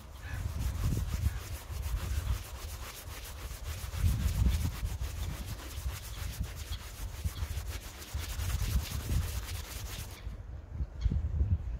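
Dry, withered mugwort leaves and flowers rubbed between the palms, a continuous crackly rustling that stops about ten seconds in, over a low rumble.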